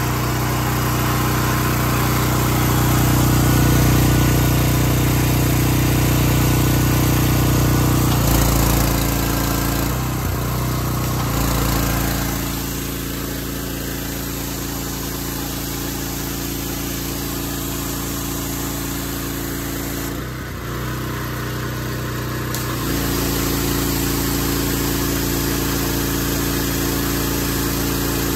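Small gas engine of a direct-drive pressure washer running steadily, with water hissing from the spray wand. The engine's note shifts about eight seconds in, the sound drops about twelve seconds in, and it comes back up a little after twenty seconds as the load on the pump changes.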